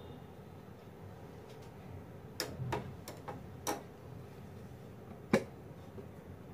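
A few light clicks of a steel spoon against a stainless steel saucepan while curdled milk is stirred, bunched together about two and a half to four seconds in, then one sharper click near the end.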